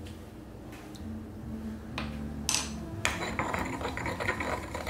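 Stone pestle knocking and grinding in a stone mortar, working a mint sauce: a few separate knocks at first, then quicker grinding and scraping from about three seconds in.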